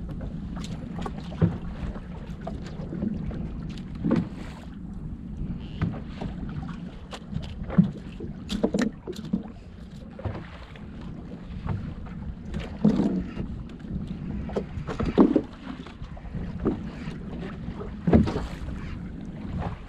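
Small fishing boat at sea with wind buffeting the microphone over a steady low rumble. Irregular knocks every second or so, the loudest two near the end.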